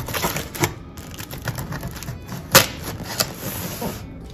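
A knife slitting packing tape on a cardboard box, with a string of sharp clicks and knocks as the box is handled and turned. The loudest knock comes about two and a half seconds in.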